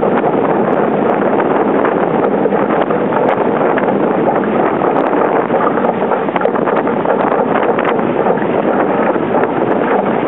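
Strong wind buffeting the microphone over water rushing past the hull of a wooden Sabre sailing dinghy moving fast. The noise is loud and steady, with frequent short splashes and gusts.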